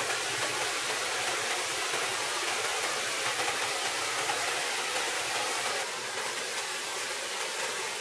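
Steady rushing of a small forest stream spilling over rocks in a low cascade; the level dips slightly about six seconds in.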